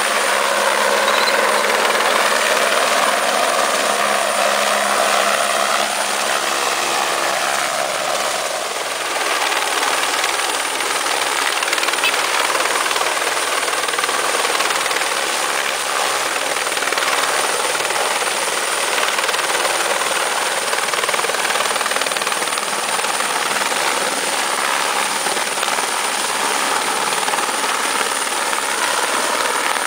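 Police helicopter flying low and coming in to land close by, its rotor and turbine running loud and steady. The pitch drifts slightly lower over the first few seconds.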